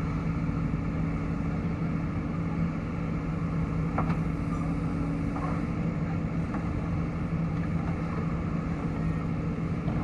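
A heavy diesel engine runs steadily at an even speed, with no revving. There is a single short click about four seconds in.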